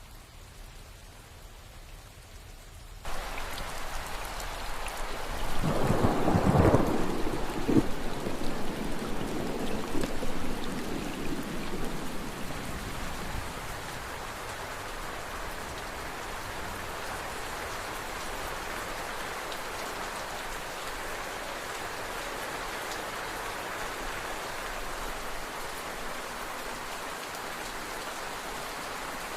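Rain, faint at first, steps up abruptly to a steady heavy downpour about three seconds in. A few seconds later a loud clap of thunder rolls and rumbles away over several seconds, leaving the even hiss of the rain.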